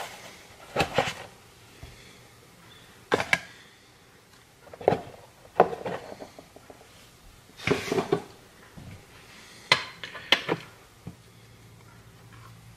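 Kitchen handling sounds while making a milkshake: a series of sharp knocks and clatters, some in quick pairs, a second or two apart, as containers and utensils are picked up, tapped and set down on the counter. A faint low hum comes in near the end.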